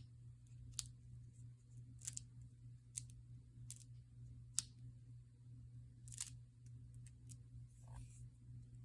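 Faint, irregular sharp clicks and taps of small craft materials being handled on a work table, about eight in all, over a steady low electrical hum.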